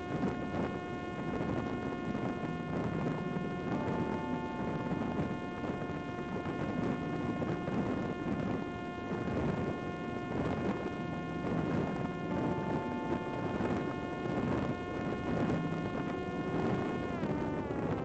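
Parrot Disco's electric pusher motor and propeller giving a steady, high buzzing whine in flight, over rushing wind noise. The whine drops in pitch near the end.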